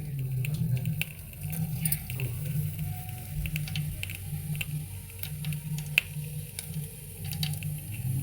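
Kitchen work while preparing saag: splashing water with scattered light clicks and knocks of handling, over a low, pulsing hum.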